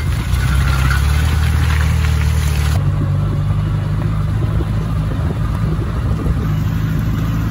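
Vehicle engine running steadily, heard from inside the cab while driving over a muddy track, with rattle and road noise over it. About three seconds in, the rattle drops away and only the steady engine sound remains.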